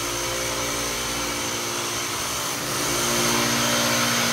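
Handheld disinfectant fogger running steadily, its motor whine over a hiss of spraying mist, growing a little louder about three seconds in.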